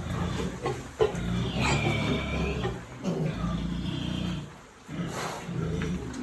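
Pigs grunting in long, low rumbling calls, with two higher drawn-out whining calls between about one and a half and four and a half seconds in.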